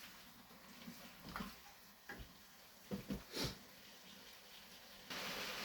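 Faint scattered taps and scrapes in a cooking pan, then a steady sizzle that starts suddenly about five seconds in: chicken and tomatoes frying in the pan.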